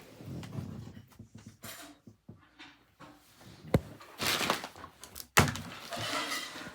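Two sharp knocks about a second and a half apart, with rustling handling noise around them.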